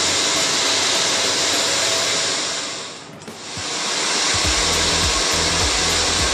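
Handheld hair dryer blowing at full speed with a steady rushing hiss. It fades briefly about halfway through, then comes back up.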